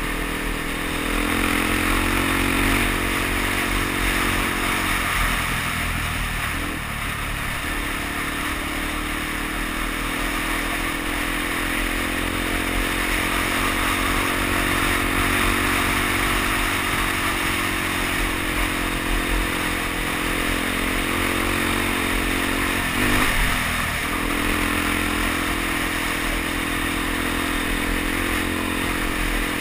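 Suzuki DR-Z dual-sport motorcycle's single-cylinder four-stroke engine running at a steady cruise, with wind rush and tyres on gravel. The engine note eases off for a couple of seconds about a fifth of the way in, and again briefly about three quarters through.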